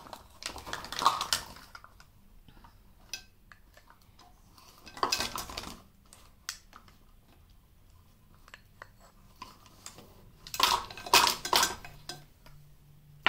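Spoon clinking and scraping against a bowl as curd is spooned into the flour. It comes in three bursts: one at the start, another about five seconds in, and a longer run of clinks near the end, with faint scattered ticks between.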